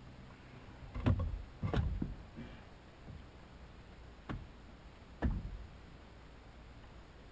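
Dull knocks and thumps on a small boat's hull as gear is handled: three close together about a second in, then two sharper single knocks about a second apart.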